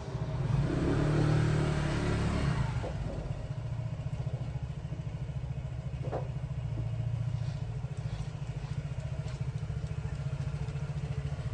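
An engine idling steadily with a fast, even pulse, louder for the first couple of seconds before settling. There is a single light click about six seconds in.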